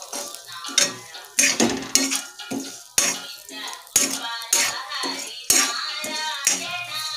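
Metal spatula scraping and clanking against a kadai while stirring peanuts, roasted gram and coconut slices in oil, with a sharp clank about once a second.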